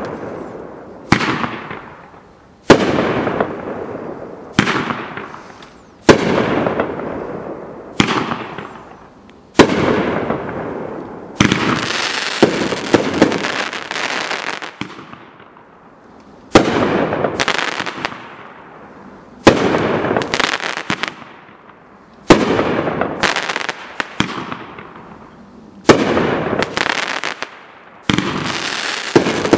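A 500g consumer fireworks cake firing shot after shot: about a dozen sharp aerial reports, one every two to three seconds, each followed by a long fading crackle as the stars burn out. Near the middle several shots come in quick succession.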